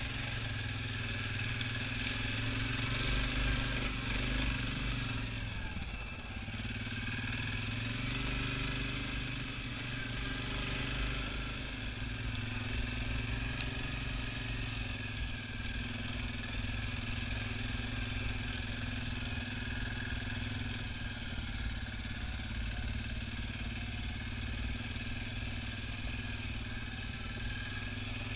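Single-cylinder ATV engine running at a steady low speed while climbing a rough, rocky trail, easing off briefly about six seconds in. A single sharp click about halfway through.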